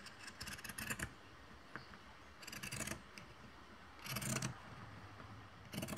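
Pinking shears cutting through cross-stitch fabric: faint bursts of snips, three of them about a second and a half apart and a fourth starting near the end.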